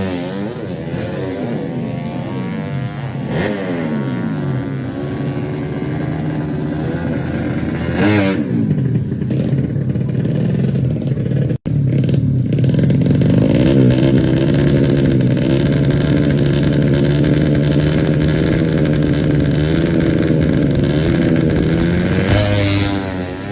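Tuned 130cc four-stroke underbone racing motorcycles revving hard, their engine notes repeatedly climbing and falling and crossing one another. The sound cuts out abruptly about halfway through, then comes back as a loud, nearly steady high-rev engine note that wavers slightly.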